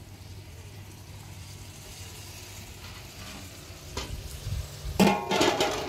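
Hot oil poured over a large aluminium pot of vegetable stew, sizzling and frying. About five seconds in, a loud metallic clatter with ringing.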